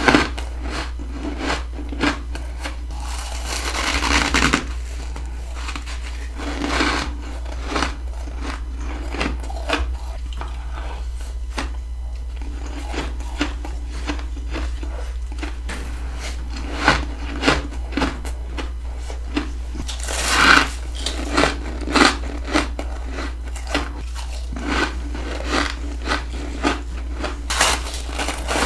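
Close-up crunching of freezer frost being bitten and chewed: a run of sharp, crisp crunches, with louder, longer crunching bites about four seconds in and again about twenty seconds in.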